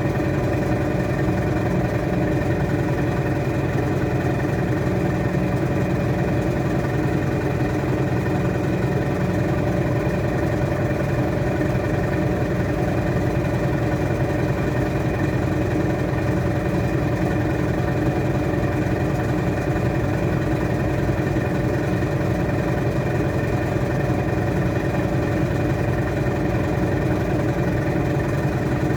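Washing machine running steadily in its spin cycle, a constant motor hum with several steady tones and no change in speed.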